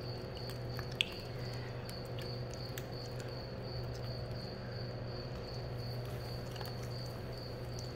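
Raw chicken carcass squeezed and worked by hand, with quiet wet squishing and a single click about a second in. Under it runs a steady low hum and a high, rapidly pulsing whine, which the speaker takes for a freezer rather than a cricket.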